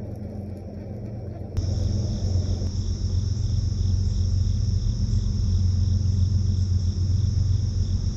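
Low rumble, typical of wind buffeting the microphone outdoors. About a second and a half in it jumps suddenly to a louder rumble with a steady high-pitched buzz over it.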